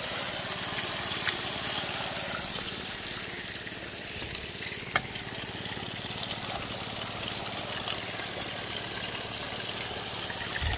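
Gold Fox trommel washing gravel: a steady rush of water spraying and splashing through the turning barrel, with a faint low hum beneath and a few sharp clicks of rocks knocking inside.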